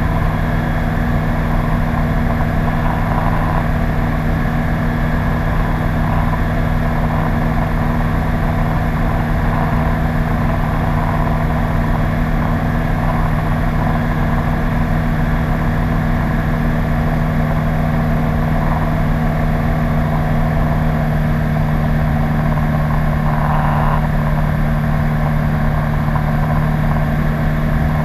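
Engine and propeller of a PS-28 Cruiser light sport aircraft, a Rotax 912 four-cylinder boxer, heard from inside the cockpit as a steady drone at constant power.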